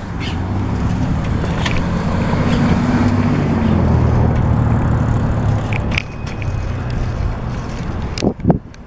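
Road traffic: car engines running and pulling away, with a steady low hum that rises a little partway through. A few sharp clicks sound over it.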